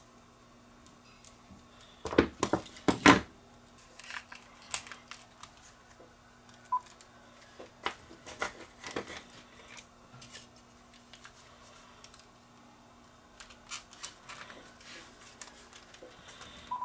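Plastic clicks and knocks as a rebuilt battery pack is fitted into a cordless phone handset and its back cover pressed on. The loudest cluster of clicks comes about two to three seconds in. A single short electronic beep from the handset sounds about seven seconds in.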